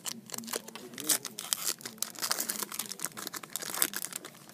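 A 2012 SP Authentic football card pack wrapper being torn open and crumpled by hand, a dense run of crackling rustles.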